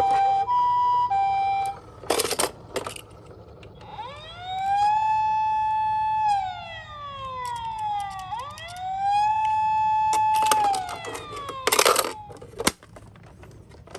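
Toy ambulance electronic sirens. A two-tone hi-lo siren alternates at the start. Then a wailing siren rises, holds and falls, twice over. Brief noisy bursts come about two seconds in and again near the end.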